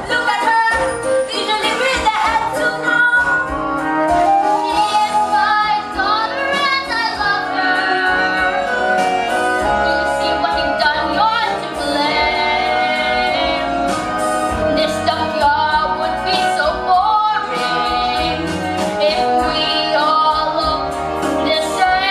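Musical-theatre song: female voices singing over instrumental accompaniment.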